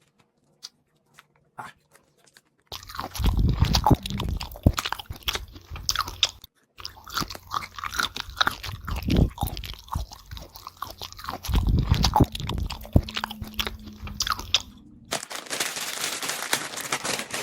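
Close-miked crunching and chewing of crisp food, in dense bursts with a short break about six seconds in. Near the end the crunching gives way to a steady hiss.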